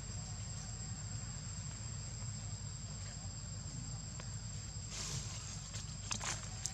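Steady high-pitched drone of insects, one unbroken tone, over a low steady rumble, with a few brief rustles about five and six seconds in.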